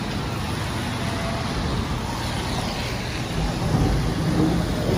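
Traffic on a rain-wet street: a steady hiss of tyres on wet road, with a car passing close and louder about three and a half seconds in.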